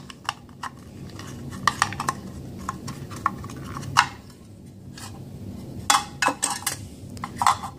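Light metallic clicks and clinks of USGI aluminium AR-15 magazine bodies and their steel springs being handled as the spring and follower are worked out, with a sharper clink about four seconds in and a quick cluster around six seconds in.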